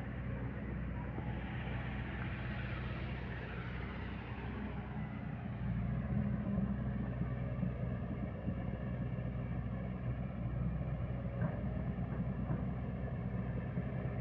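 Heavy diesel engine of a crawler excavator loading coal, running steadily with a low hum that gets louder about six seconds in.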